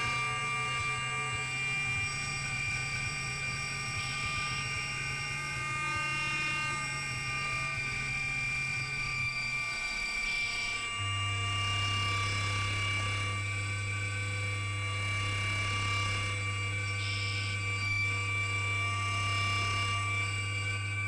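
Improvised electronic drone music played on battery-powered instruments. A low bass drone stops about ten seconds in, and a lower drone takes over a second or so later, under several high tones held steady throughout.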